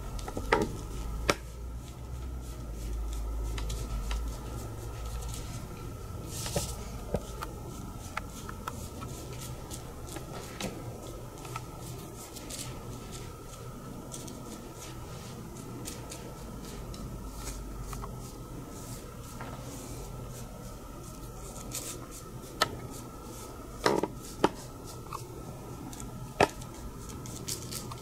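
Chinese ink brush dabbing and dragging on rice paper, heard as soft scratchy strokes with a few sharp clicks and taps, the loudest pair about three-quarters of the way through. A faint steady hum lies underneath.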